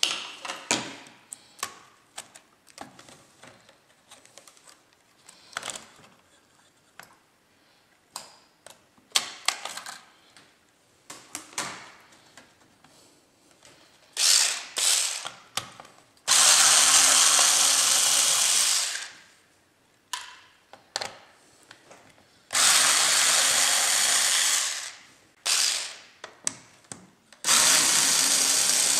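Small cordless electric screwdriver running in several bursts of two to three seconds each, backing screws out of a laptop's plastic case, with some shorter spurts between them. Before that, about halfway through, come light clicks and taps of plastic parts being handled.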